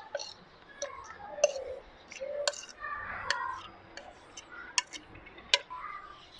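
A metal fork scraping and tapping against a plate as shredded boiled chicken is pushed off it into a plastic bowl: irregular sharp clicks with softer scraping between them.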